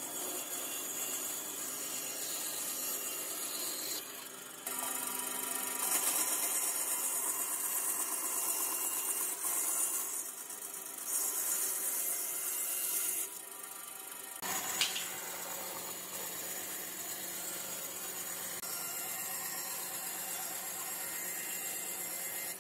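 Band saw running and ripping wooden boards lengthwise into strips, a steady cutting noise. It changes abruptly a few times, about four seconds in and again near the middle, where the footage is cut.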